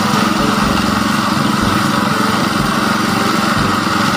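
Concrete mixer truck's engine running steadily as the truck discharges concrete down its chute.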